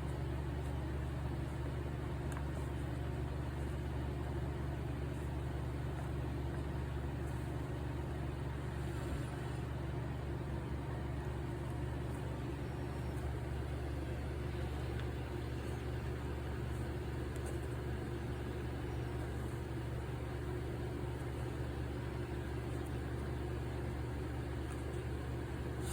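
Steady low machine hum, unchanging, with no distinct events.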